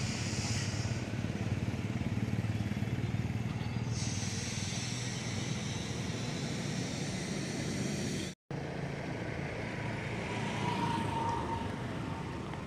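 Steady outdoor background noise, a low hum of road traffic with some hiss, cut off for a split second about eight seconds in.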